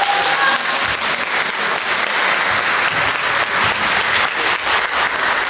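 Audience applauding steadily, dense clapping with no break.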